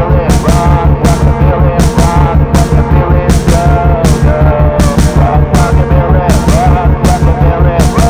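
Rock music track with a steady, fast drum beat, about two and a half beats a second, over heavy sustained bass, with a short wavering melody line repeating above it.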